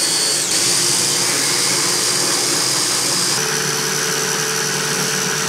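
Small four-blade electric mini chopper blender running flat out, its motor whining steadily while it purées hot mushroom soup and potato. The whine drops slightly in pitch about three and a half seconds in, and a lower hum comes in.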